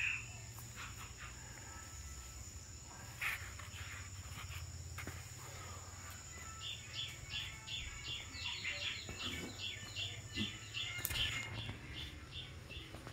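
Outdoor nature ambience: a steady high-pitched insect-like whine, and from about halfway on, a small animal chirping in short high notes about three times a second. A couple of brief knocks from handling are mixed in.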